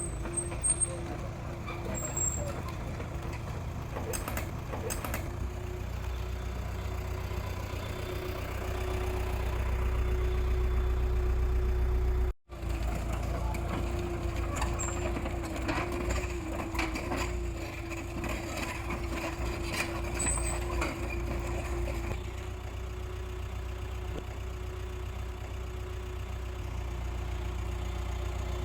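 Hydraulic excavator's diesel engine running with a steady whine over its low rumble, growing louder about eight seconds in, then dropping out for a moment before running on.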